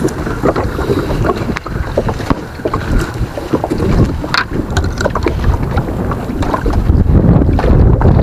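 Wind buffeting the microphone on a small boat, with water lapping and knocking irregularly against the hull; the wind gets louder near the end.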